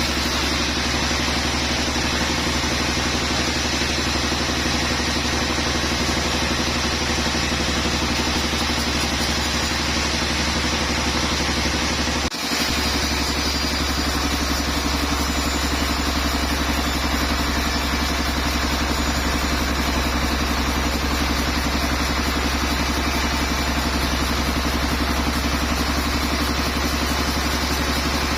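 A sawmill's engine running steadily at a constant speed, with a low hum and a brief break about twelve seconds in.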